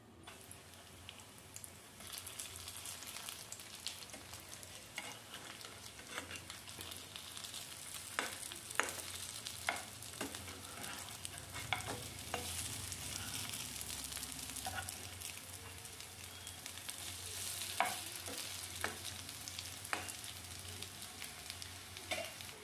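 Potato and carrot fritters sizzling in hot oil in a nonstick frying pan. The sizzle gets louder about two seconds in. Scattered sharp clicks come through it, from a metal spatula being worked against the pan.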